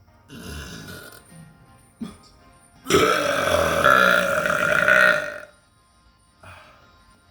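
A person burping: a shorter burp about half a second in, then a long, loud burp lasting about two and a half seconds that starts about three seconds in.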